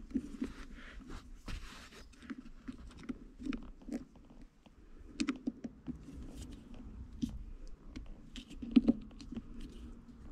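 Small flat-blade screwdriver prying and twisting at the metal clip that holds the shift boot to the gear knob. It makes irregular small clicks, taps and scrapes of the steel tip against metal and plastic, with a brief scraping rasp in the first two seconds.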